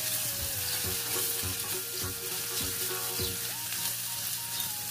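Chopped onion and ginger-garlic paste frying in hot oil in a stainless steel pressure cooker, with a steady sizzle. A silicone spatula stirs through the pan.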